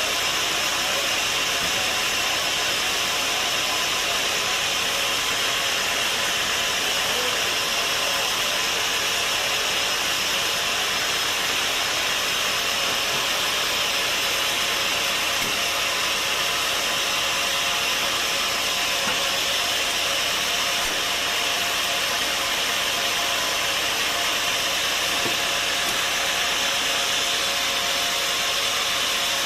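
Sawmill saw running steadily through wood, a constant high whir and hiss with no breaks or changes.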